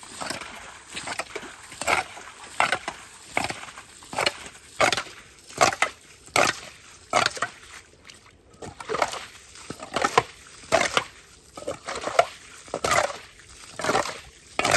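A metal lid scooping and splashing muddy water and silt out of a shallow spring pool, over and over, more than once a second.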